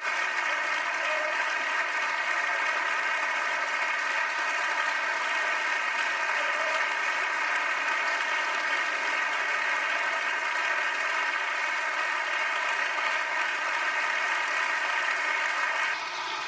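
Sustained applause from many deputies clapping together in a large parliamentary chamber, easing slightly near the end.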